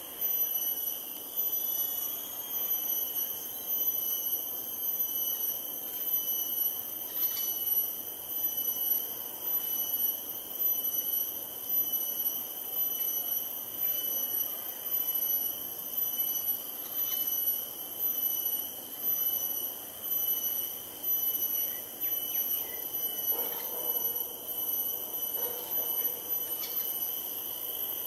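A steady high-pitched whine that swells and fades about once a second, with a few faint taps.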